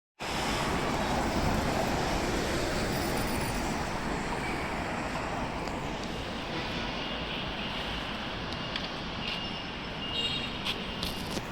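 City street traffic noise: a steady wash of passing vehicles, a little louder in the first couple of seconds, with a few faint short high tones near the end.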